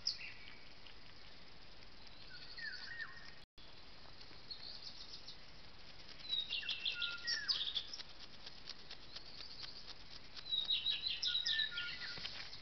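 A songbird singing at night in separate phrases of clear whistles, some falling, and quick trills, over the steady hiss of a trail camera's microphone. The sound cuts out completely for a split second about three and a half seconds in.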